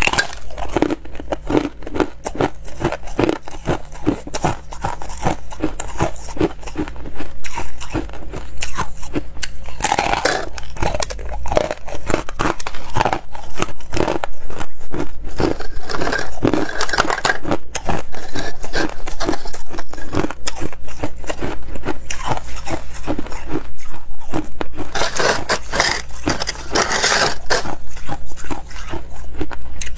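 Frost-covered slabs of freezer ice being bitten and chewed, close to a clip-on microphone: a dense, continuous run of crunches and cracks.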